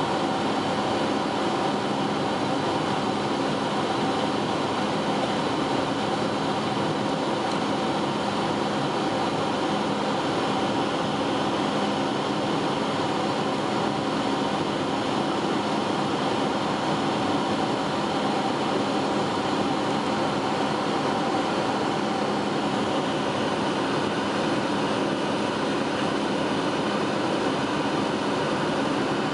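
Steady cabin noise inside a Boeing 757-200 in its climb: the jet engines running with rushing airflow, an even roar with a few held hums underneath.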